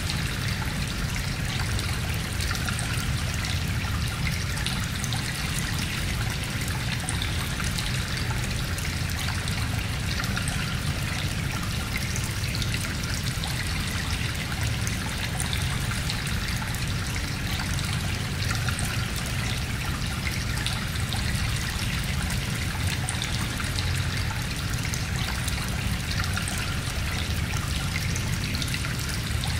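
Sea water washing steadily onto a shore, a continuous even rush of water with no breaks.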